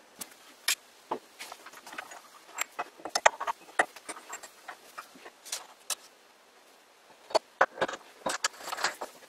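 Steel lathe fittings being handled: an irregular run of sharp clicks and metallic clinks as a dial indicator is taken off and a tool clamp is set onto the toolpost stud, with a short pause about two thirds of the way through.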